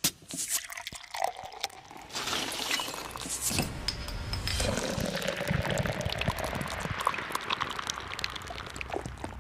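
Liquid pouring steadily, with a few sharp clicks before the pour begins.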